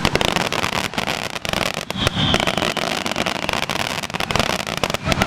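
Fireworks finale: a rapid, continuous barrage of bangs and crackles from many shells bursting close together.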